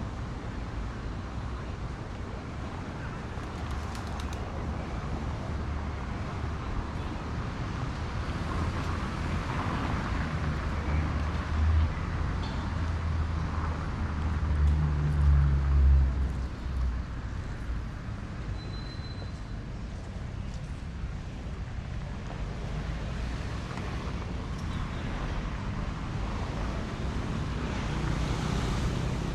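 City street traffic running steadily past, with one vehicle's low engine growing louder and passing about halfway through.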